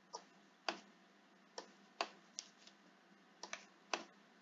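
Quiet, uneven clicking at a computer as text is selected for copying, about eight clicks, two of them close together about three and a half seconds in.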